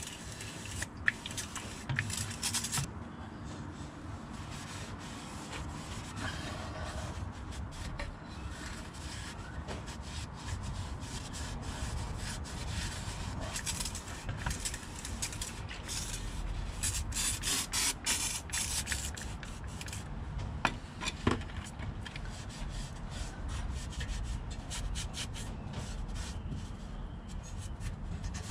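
A hand-pump spray bottle hissing in short bursts into an empty rear axle housing, with a rag rubbing and wiping around inside the steel housing to clean it out.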